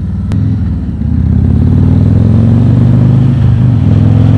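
Harley-Davidson Road King Special's V-twin engine pulling hard under acceleration, getting louder over the first two seconds and then holding at a loud, steady drone; a sharp click sounds just after the start.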